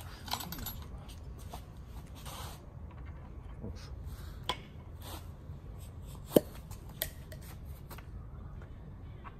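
Hand tools being handled on a bicycle steerer tube: a few sharp metal clicks and clinks, the loudest about six and a half seconds in, over a low steady background rumble.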